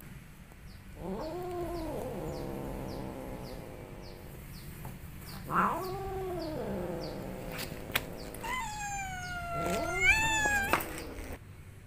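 Domestic cat yowling angrily: three long, drawn-out caterwauls, the last one rising in pitch near its end.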